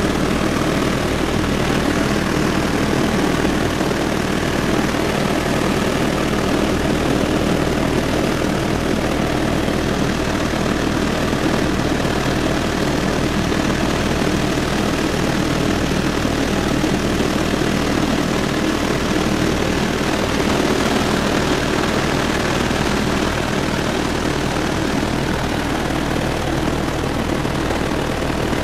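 Helicopter engine and rotor noise heard from inside the cockpit in steady flight: a loud, unchanging drone with a low hum.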